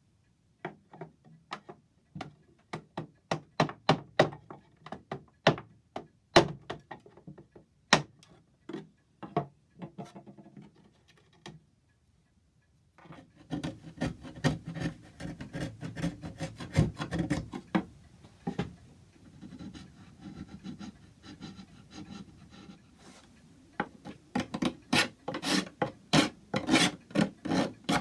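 A hand tool working wood in repeated scraping, rasping strokes, irregular at first, then faster and denser after a short pause about twelve seconds in.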